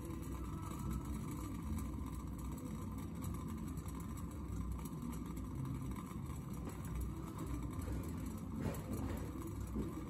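Silex vacuum siphon coffee maker brewing on its heater: water boiling in the lower glass bowl pushes steam up through the coffee in the upper bowl, giving a steady low bubbling rumble.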